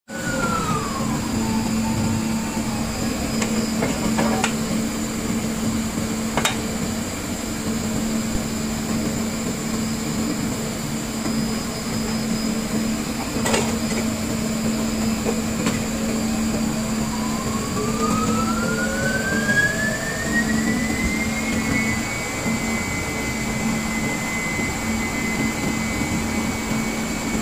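Drilling rig machinery running steadily on the drill floor during tripping, with a constant hum and a few sharp metal clanks. About two-thirds through, the hoisting machinery whines up in pitch and then holds steady as the top drive travels up the mast.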